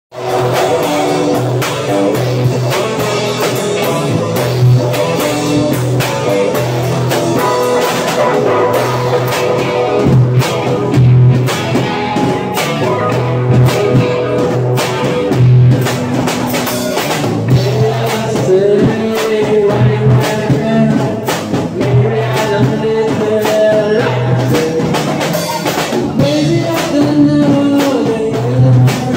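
Rock band playing live: electric guitars, bass guitar and drum kit, with a male lead vocal coming in past the halfway point.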